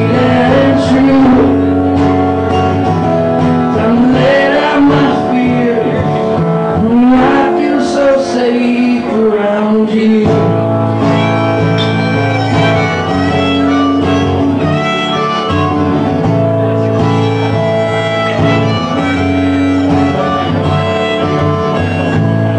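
Live solo performance: a man singing over a strummed acoustic guitar, with the voice dropping out about ten seconds in, leaving the acoustic guitar strumming chords alone.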